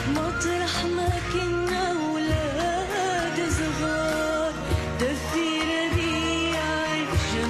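A young girl singing an Arabic song into a microphone over instrumental accompaniment, her voice wavering and ornamenting the melody.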